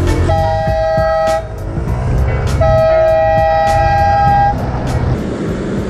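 Home-built air horn on a scooter sounding two blasts of a two-note chord, the first about a second long, the second about two seconds. Underneath, the Honda SH125 scooter's engine runs with a low hum.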